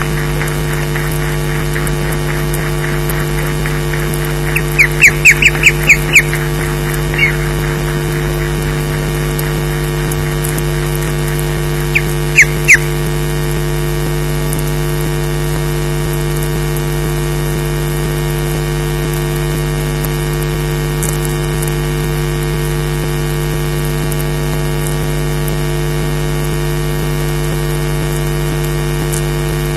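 Osprey calling in short, high notes: a quick run of about seven about five seconds in, one more soon after, and three more about twelve seconds in. All of it sits over a steady electrical hum from the nest camera's audio.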